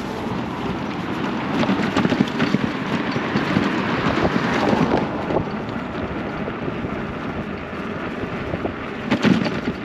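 Wind rushing over the microphone and road noise from a delivery bike in motion, with scattered small knocks and rattles.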